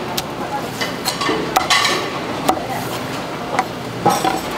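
A large kitchen knife knocking on a wooden cutting board as boiled pork liver and offal are chopped: about five sharp, unevenly spaced knocks over a steady noisy background.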